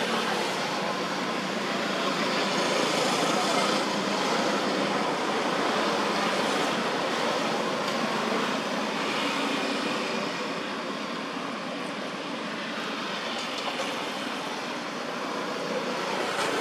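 A steady rushing noise that eases off a little in the second half, with no distinct events.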